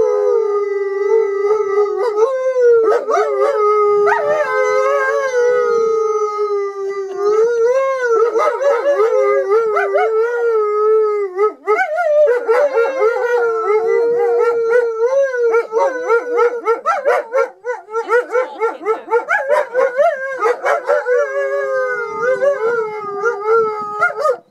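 Two wolves howling together in long, overlapping, wavering howls. About halfway through, the calls turn more broken and quickly wobbling. It is a pack's family-bonding howl.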